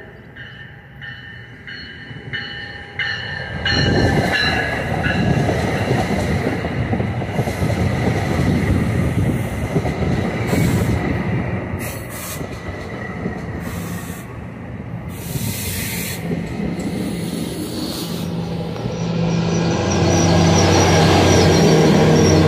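A New Jersey Transit push-pull commuter train passes close by. For the first few seconds it is fainter, with a high tone pulsing about twice a second. From about four seconds in, the cab car and multilevel coaches rush past with loud wheel-on-rail rumble. Near the end the diesel locomotive at the rear goes by with a steady engine drone and a thin, high wheel squeal.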